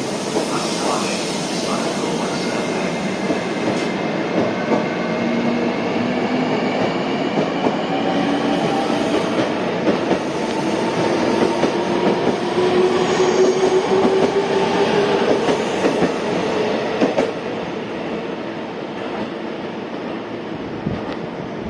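Electric train running past, its motor whine rising in pitch as it gathers speed, with the wheels clicking over rail joints; it fades about 17 seconds in.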